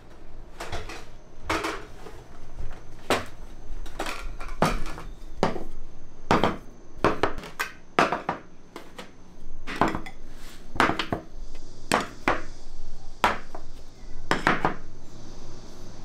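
Cutlery clinking against dishes: irregular sharp clinks, about one or two a second.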